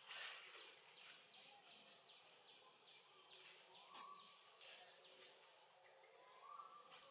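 Faint outdoor ambience: a high, short chirp repeating about three times a second, with a few soft whistled notes about four seconds in and again near the end.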